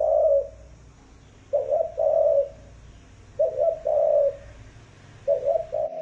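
Spotted dove cooing: a phrase of two short notes and a longer one, repeated about every two seconds.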